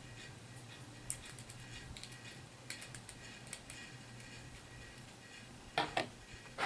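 Faint, scattered small clicks and taps of plastic miniature figures and packaging being handled on a table, with a louder short clatter near the end.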